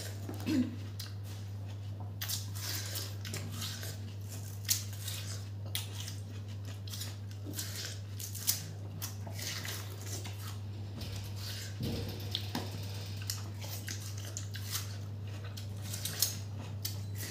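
Close-miked eating of juicy watermelon slices: wet bites and mouth smacks off the rind, with scattered sharp clicks, over a steady low hum.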